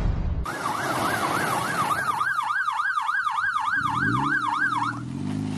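Electronic siren yelping, its pitch rising and falling about three times a second. A low rising tone joins about four seconds in.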